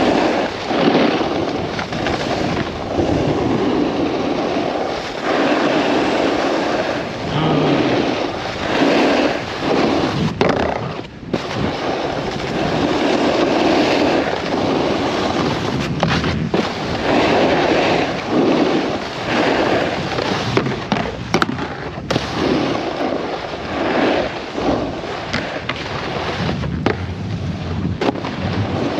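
Snowboard edges scraping and carving over packed snow, the hiss swelling and fading with each turn, with a few sharp clacks from the board now and then.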